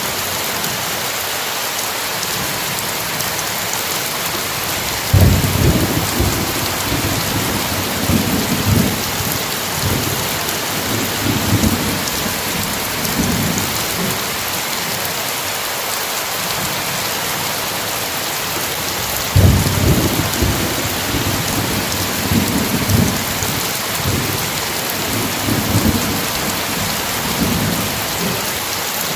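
Steady heavy rain with two thunderclaps, about 5 and 19 seconds in. Each breaks suddenly and then rolls on in uneven low rumbles for several seconds.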